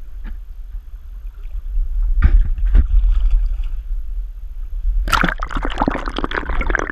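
Water splashing and sloshing: a few separate splashes in the first half, then a burst of heavy, continuous splashing from about five seconds in, over a steady low rumble.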